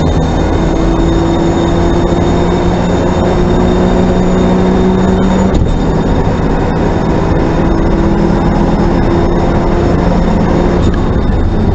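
Race car engine heard from the cockpit under hard acceleration, its note climbing steadily, with an upshift about halfway through and another near the end, over a constant rush of road and spray noise and a thin high whine.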